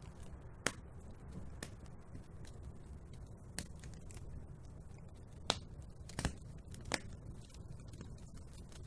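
Wood fire burning in a fireplace: a steady low rumble with irregular crackles and sharp pops, the loudest a handful of snaps scattered through, two close together about six seconds in.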